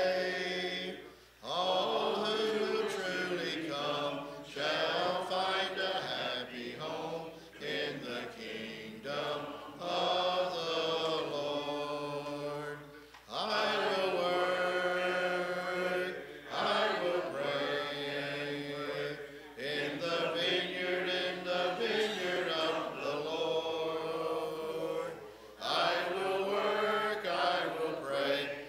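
A church congregation singing a hymn in unaccompanied four-part a cappella style, led by a male song leader. The singing comes in long held phrases with brief pauses for breath between lines.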